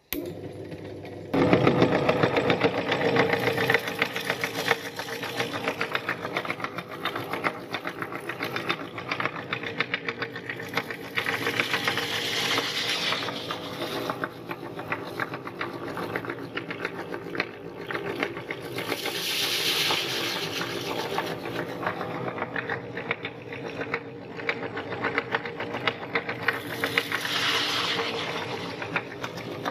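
Electric meat grinder switched on with a click, then its motor running with a fast, steady rattle while it crushes puffed rice. It grows louder about a second in, and gritty hissing swells rise three times as rice goes through.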